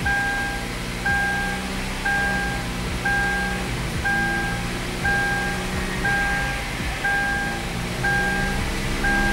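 Kia Sportage's seatbelt warning chime beeping about once a second, each beep about half a second long, over the engine and drivetrain running in Drive with the wheels spinning up on a lift. The rebuilt A6MF1 six-speed automatic transmission is running without any abnormal noise.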